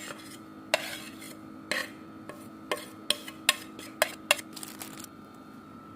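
Metal kitchen utensil clinking and scraping against a dish or bowl in a series of sharp taps, about one a second at first and then quicker, over a steady appliance hum.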